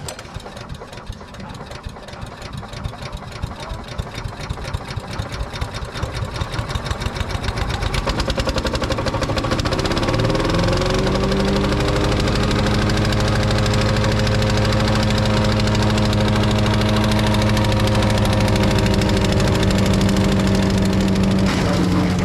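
The engine of a GardenBeaut S1 wood chipper speeds up over about ten seconds, its quick pulsing growing faster and louder. It then runs steadily at high speed.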